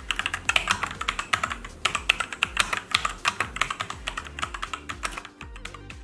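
Typing on an Ajazz K870T mechanical keyboard with black linear switches: a fast run of keystrokes that stops about five seconds in.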